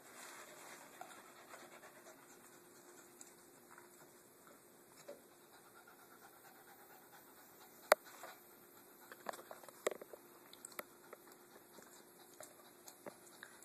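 Dogs around a water bowl: soft panting, a sharp knock about eight seconds in, then a scatter of small clicks and taps.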